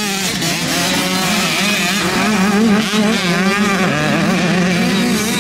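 Several motocross dirt bikes racing by on a dirt track, their engines revving up and down with the throttle. Several engine pitches overlap, rising and falling constantly.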